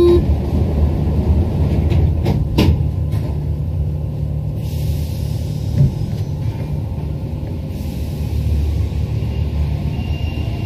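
Steady low rumble of a rubber-tyred Paris Metro Line 1 train standing at a platform and then moving off into the tunnel, with two sharp knocks about two seconds in and a smaller one a few seconds later.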